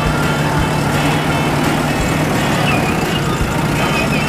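JCB backhoe loader's diesel engine running with a steady low hum.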